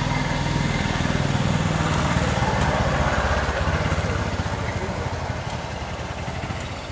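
A small engine running with a steady low pulse, fading away over the last couple of seconds.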